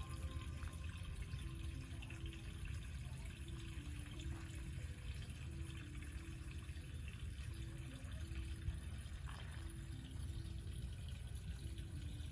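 Soft background music of slow, single held notes over quiet outdoor ambience with a low, steady rumble.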